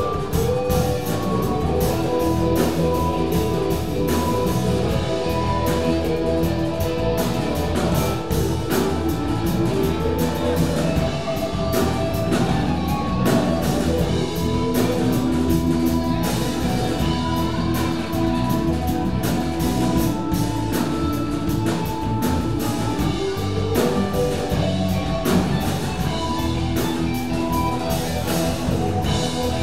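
Live rock band jamming without a set structure: drum kit, bass guitar, two electric guitars and keyboard playing together, with sustained melodic notes over continuous drum and cymbal hits.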